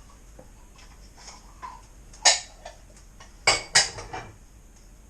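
Kitchen utensils and containers clattering as they are set down and put away: a sharp knock about two seconds in, two more close together about a second later, and lighter clicks between.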